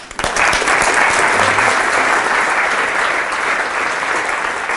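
Audience applauding: dense, steady clapping that starts at once and holds.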